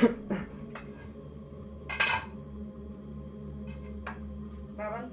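A few separate clinks and knocks, the strongest about two seconds in, over a faint steady hum, with a short pitched sound near the end.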